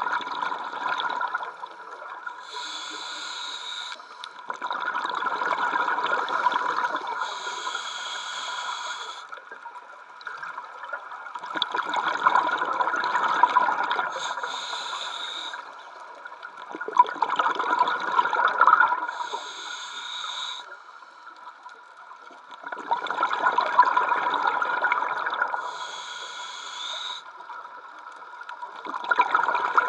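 Scuba diver breathing through a regulator, recorded underwater: a short hiss of each inhalation, then a longer, louder rush of exhaled bubbles. About five breaths, one every five to six seconds.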